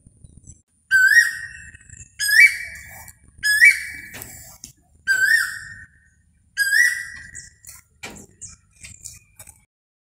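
Male Asian koel calling: five loud, rising whistled 'ko-el' notes, one about every second and a half, followed by a few faint short notes near the end.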